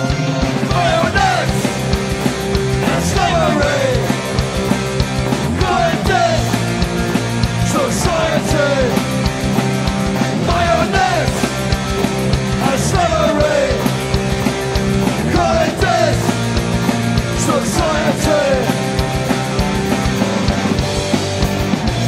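Oi!/streetpunk band recording playing loud and steady as a full rock band, with a sliding melodic phrase that recurs about every two seconds.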